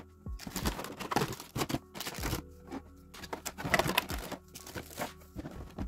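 Packaging crinkling and rustling in irregular bursts, with a few sharp clicks and knocks, as the clipper and its box are handled.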